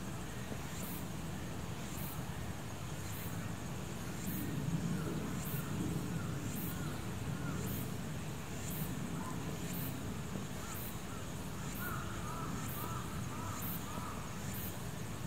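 Outdoor ambience: a steady low rumble, with runs of short repeated bird calls about five seconds in and again near the end, over a faint high pulsing about twice a second.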